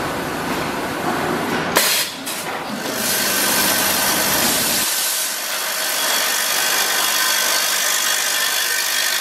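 Linear weigher packing machine running: steady mechanical noise with a sharp click about two seconds in, then a louder, even hiss.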